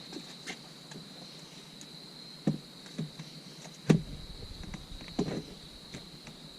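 A few scattered knocks and thumps, the loudest about four seconds in, over a steady thin high whine.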